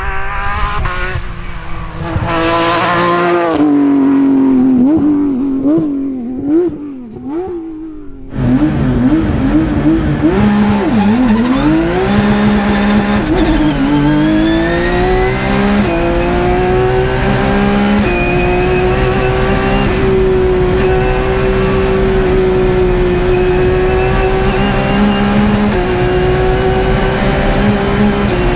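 Porsche 997 GT+ rally car's flat-six engine at full attack. For the first eight seconds it is heard from the roadside, its note rising and falling through gear changes as it drives past. After a sudden jump to the in-car sound, the engine winds up through several upshifts and then holds high revs.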